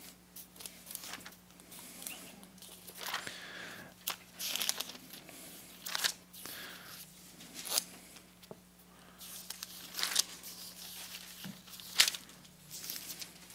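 Thin Bible pages being leafed through while looking up a verse: a string of irregular paper rustles and flicks.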